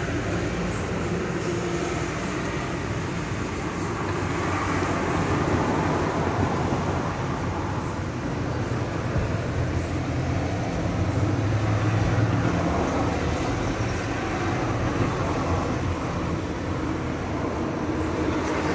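Steady low rumble of vehicle noise with a hiss over it, swelling slightly partway through.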